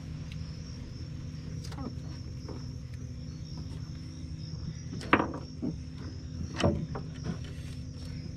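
Crickets trilling steadily in the night over a steady low hum, broken by a few brief sudden sounds about five and six and a half seconds in.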